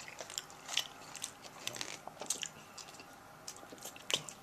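A person chewing a mouthful of food close to the microphone, a run of small wet, clicky mouth sounds at an irregular pace, with a louder smack near the end.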